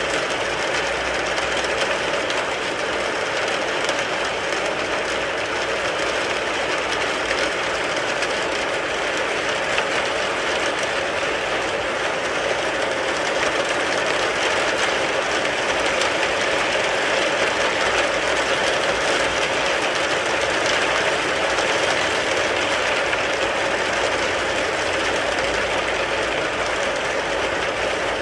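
Steady heavy rain drumming on a car, a dense, even patter of drops that does not change.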